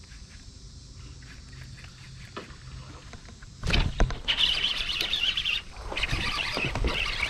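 A baitcasting reel and its line being worked by hand right at the microphone: loud scratchy rubbing and fine clicking in two spells starting about halfway in, with a short break between, after a faint low hum.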